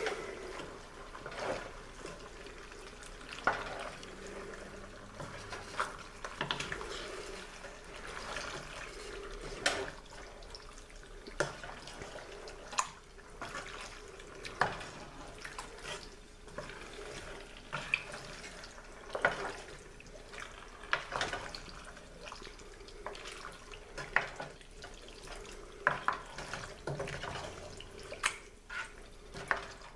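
A wooden spoon folding thick, tomato-sauced stew with egg noodles and vegetables in a pot: wet squelching and stirring, with irregular sharp clicks as the spoon knocks the pot.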